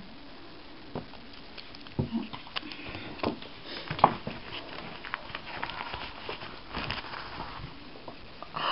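Hands handling small wrapped sweets on a table: wrapper rustling with scattered light taps and knocks, the sharpest about two and four seconds in.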